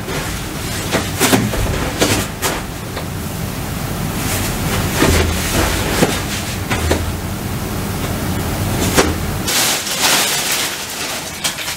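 Rustling hiss of clothing and body movement close to the microphone, dotted with small clicks and crackles, as a person stands and moves; a louder rustle comes near the end as she sits back down.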